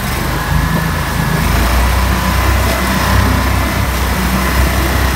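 Pro-Drive 36 hp mud motor running steadily under power, driving the boat along. It holds an even, unbroken note.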